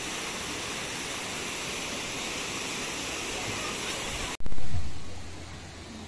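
Steady rushing water of a waterfall and stream. It cuts off suddenly about four seconds in, and a loud low rumble follows, fading away within about a second.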